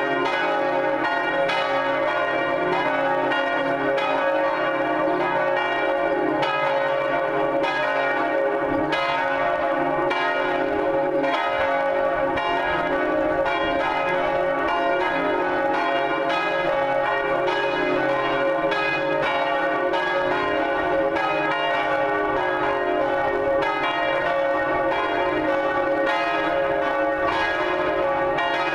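Full peal of three Cornille-Havard church bells, cast in 1905 and 1954, swinging together in a plenum pitched in D-flat. The strikes overlap in a steady, continuous clangour.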